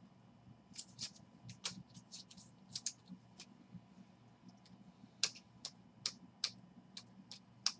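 Baseball cards being flipped through by hand, each card slid off the stack against the next: a string of irregular, soft, sharp clicks and flicks.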